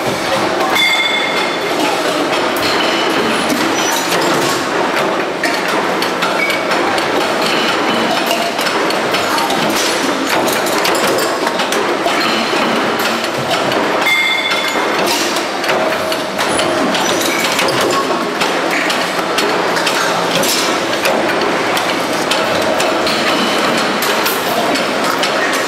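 Factory-floor din from metal-forming presses: steady machinery noise thick with frequent metal knocks and clanks, and now and then short high clinks, as metal pots are pressed and handled.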